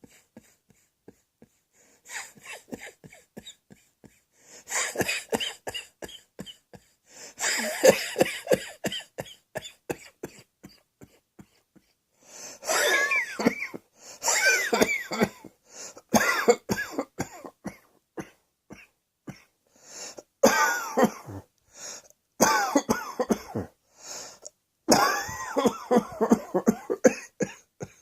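A person coughing over and over in bouts of several quick coughs, with short pauses between the bouts.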